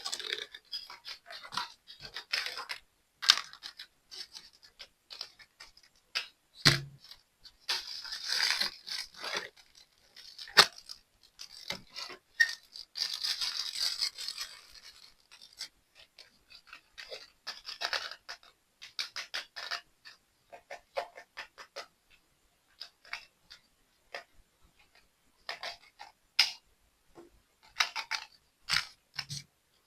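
Hands handling and unpacking a plastic toy: irregular clicks and taps mixed with rustling, scraping noises, with longer stretches of rustling about eight and thirteen seconds in.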